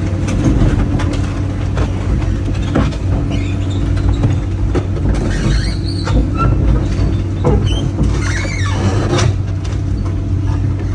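Diesel excavator engine running steadily at light throttle, still cold, as the machine tracks up onto a trailer, with repeated clanks and knocks and short high squeals from the tracks and undercarriage.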